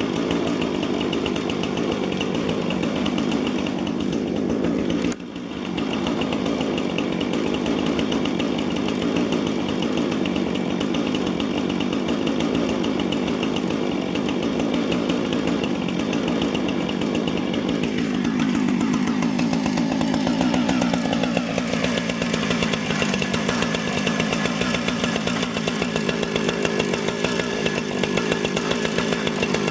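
Husqvarna 455 Rancher two-stroke chainsaw running steadily while it rips lengthwise through a log in a chainsaw mill. It dips briefly about five seconds in, and its pitch sinks a little past the halfway point as it works under load.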